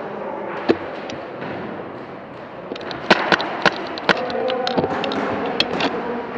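Airsoft gunfire in an indoor arena: scattered sharp cracks at first, then a denser, irregular run of shots and hits in the second half.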